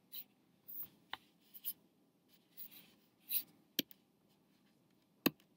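Quiet, sparse handling of a computer: three sharp clicks among short, soft scuffing and rubbing sounds.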